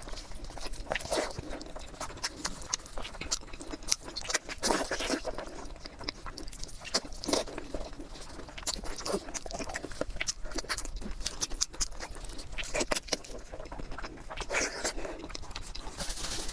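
A person chewing and biting food close to the microphone, with irregular wet smacks and clicks.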